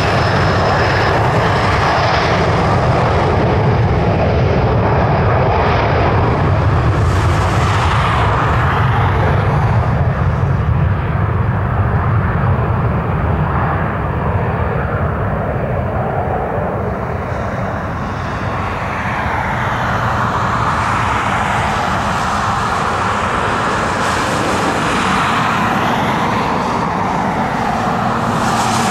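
Dassault Falcon 50 business jet's three Honeywell TFE731 turbofan engines at takeoff power through the takeoff roll and climb-out: a loud, steady jet rumble with a high whine in the first second or so. In the second half the sound swishes and sweeps as the jet climbs away.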